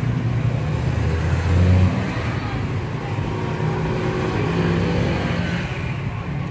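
Street traffic passing close: motorcycles and cars driving by, with engine noise loudest just before two seconds in.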